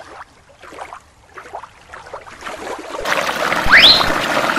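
Running water of a shallow creek over rocks, which comes in suddenly about three seconds in after a quieter stretch, with a short rising chirp just after it starts.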